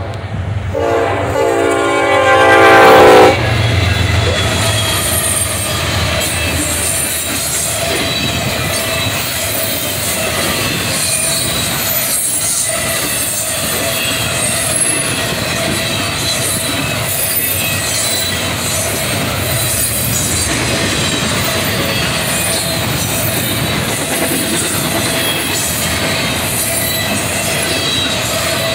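A Norfolk Southern locomotive's horn sounds a loud chord that cuts off sharply about three seconds in. Then the double-stack intermodal cars roll steadily past, wheels clacking and squealing in thin high streaks.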